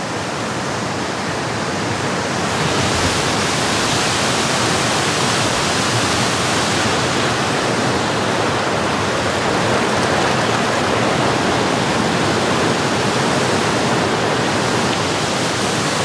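A tall forest waterfall and the creek running from it make a loud, steady rush of falling water. The rush grows louder about three seconds in.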